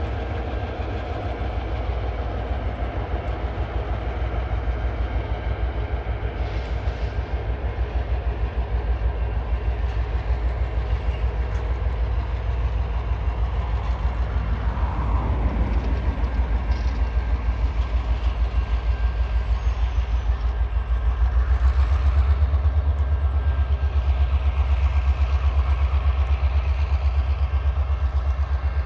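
Freight train passing on a curve: the diesel locomotives' engines, then a long string of container wagons rolling by with a steady low rumble and some clickety-clack of wheels on rail, which grows louder about three quarters of the way through.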